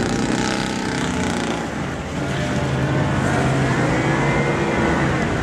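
Car engine and exhaust working hard while driving over rough off-road ground, the engine note rising and falling with the throttle.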